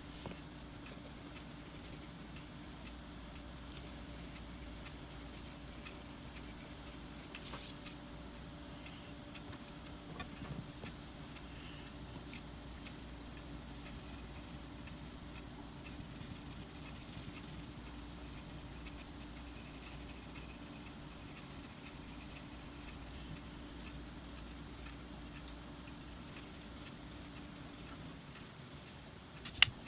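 Faint, steady scratching of coloured pencil on paper under a low steady hum, with a sharp click near the end.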